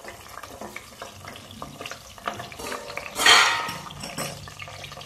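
Whole spices pre-soaked in water sputtering and sizzling in hot oil in a steel pot, with a louder burst of hissing about three seconds in.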